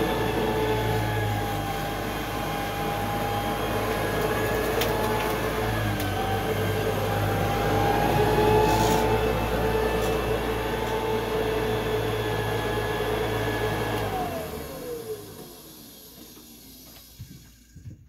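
Bissell BGCC28 wide-area commercial vacuum, a fan-first machine, running steadily as it is pushed and pulled over carpet, with a low hum and a few steady motor tones. About fourteen seconds in it is switched off, and the motor winds down with falling pitch until it is quiet.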